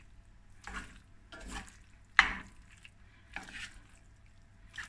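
Wooden spoon mixing macaroni and minced meat in a stainless steel pan: about five separate stirring strokes, with one louder, sharper stroke a little over two seconds in.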